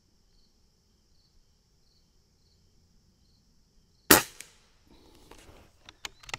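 A single shot from an Umarex Gauntlet PCP air rifle with a barrel shroud about four seconds in: a sharp crack with a brief ring. It is followed near the end by a few small clicks as the bolt is worked to load the next pellet.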